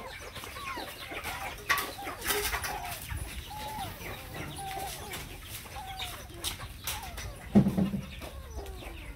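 Short, arched animal calls repeating every second or so, with one louder short sound about seven and a half seconds in.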